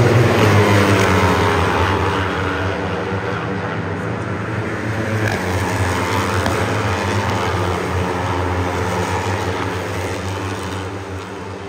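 Several 400 cc sport production race motorcycles running at high revs, their engine notes overlapping and sweeping up and down in pitch as they pass. The sound is loudest at the start and fades toward the end.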